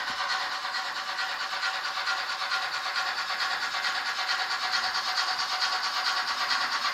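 Märklin H0 model trains running on the layout: a steady rasping rumble of wheels and motors on the track, with a fast, even pulsing.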